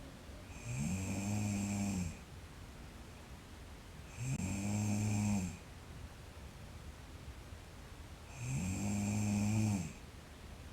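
A sleeping person snoring: three evenly spaced snores about four seconds apart, each about a second and a half long, with a low buzzing pitch.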